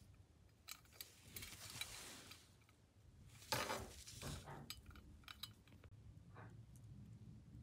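Faint clinks and rustles of a metal replica diadem set with rhinestones being handled and turned over in the hand, in scattered short bursts; the loudest rustle comes about three and a half seconds in.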